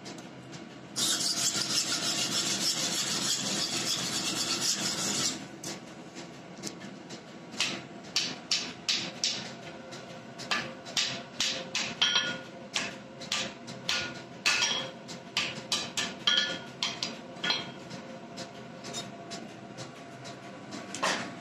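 Hand forging of hot steel on an anvil: about a second in, a harsh scraping runs for about four seconds, then hand-hammer blows on the glowing blade come in irregular spells of several a second, some ringing off the anvil. A steady forge noise runs underneath.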